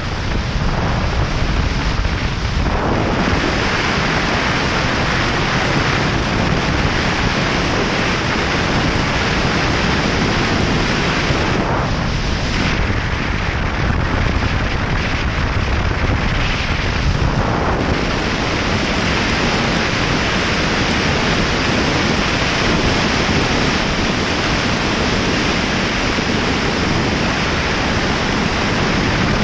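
Heavy wind noise on the microphone of a moving motorcycle at road speed: a steady rush that masks almost everything else. It thins a little for a few seconds near the start and again around the middle.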